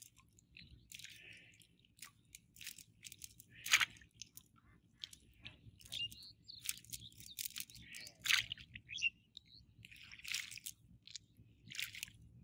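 Wet cast net and tangled muddy weeds rustling and crackling as they are pulled and picked through by hand, in irregular bursts.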